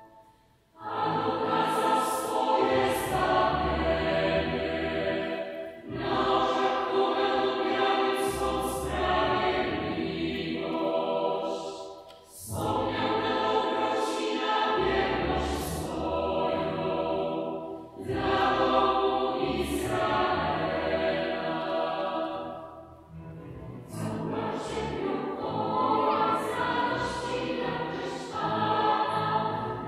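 A mixed choir singing a Polish sacred song. It comes in about a second in and sings in phrases of about six seconds, with short breaks between them.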